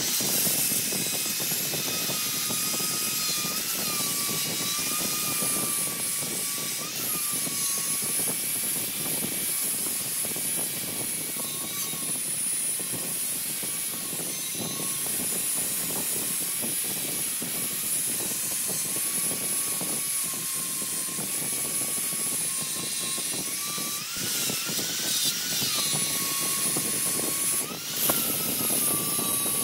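Electric angle grinder with a sanding disc sanding a wooden turning as it spins on a lathe: a steady high motor whine over a sanding hiss. The pitch wavers as the disc bears on the wood, with a few quick rises near the end.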